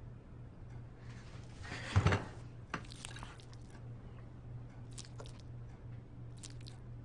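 Rustle of clothing and a soft thump, about two seconds in, as someone sits down on a wooden floor, then a few small sticky, crinkly clicks of cake being pulled apart by hand and eaten, over a steady low hum.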